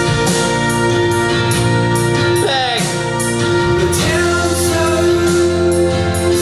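A song with a singing voice over held instrumental chords and a regular beat.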